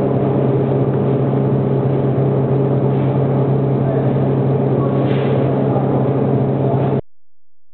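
Inverted vertical wire drawing machine running: a steady, loud motor-and-gearbox drone with a strong low hum, cutting off suddenly about seven seconds in.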